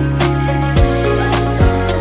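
Background music: a slow R&B or soul track with a steady beat of low drum hits.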